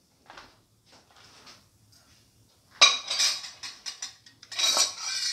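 Spatula scraping and knocking against a cooking pan while cooked instant noodles are worked into a mutton mixture: a few faint scrapes, then two louder bouts of scraping about three and five seconds in.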